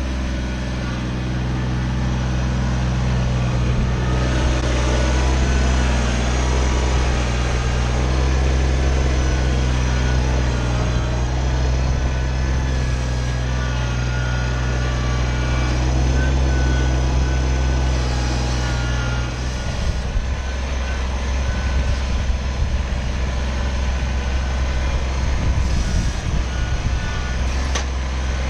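Kubota BX25 sub-compact tractor's diesel engine running steadily. About two-thirds of the way in, the sound turns rougher and uneven.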